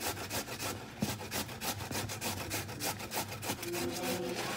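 A vegetable being shredded by hand on a stainless steel box grater, in rhythmic rasping strokes several times a second.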